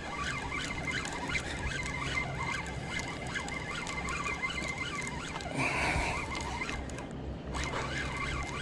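Fishing reel being cranked while playing a hooked fish: light clicking and whirring mixed with rustling handling noise, with a short squeal about six seconds in.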